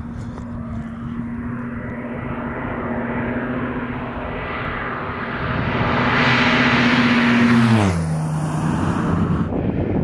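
Air Tractor 301 crop duster powered by RED's twin-turbo V12 diesel, making a low pass toward the microphone. The steady engine note grows louder, then drops sharply in pitch as the plane passes overhead about eight seconds in.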